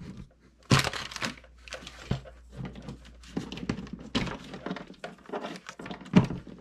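Handling noises: plastic packaging crinkling and rustling, with scattered clicks and knocks at irregular moments.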